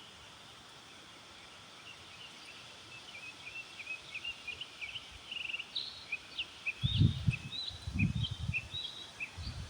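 A flock of small birds chirping busily, starting about two and a half seconds in. In the last few seconds gusts of wind buffet the microphone with low rumbling bursts.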